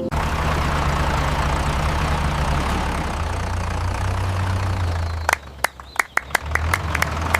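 Cartoon vehicle engine running with a steady low rumble under a loud rushing hiss, like a chase sound effect. About five seconds in the hiss stops and a quick, uneven string of sharp clicks follows over the still-running engine.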